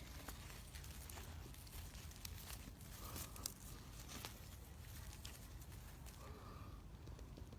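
Faint rustling and scattered crackles of soil and potato plants being handled as potatoes are dug up, over a low steady rumble.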